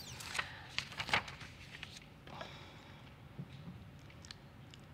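A pause in a talk: quiet room tone through a lectern microphone, with a few faint small clicks in the first couple of seconds.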